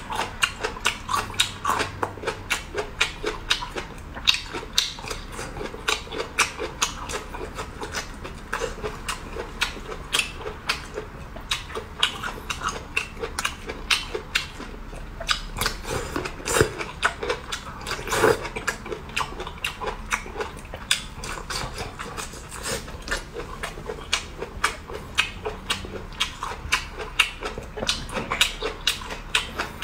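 A person biting and chewing bamboo shoots: a dense, irregular run of crunchy clicks, several a second, throughout.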